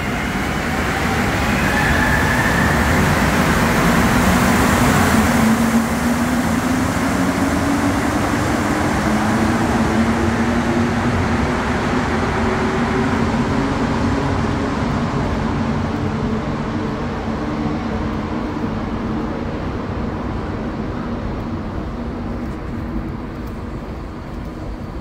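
Rubber-tyred Montreal Metro AZUR train running in the tunnel, a loud steady rush of running noise. Its traction motors whine in a few tones that slowly climb in pitch while the rush gradually eases.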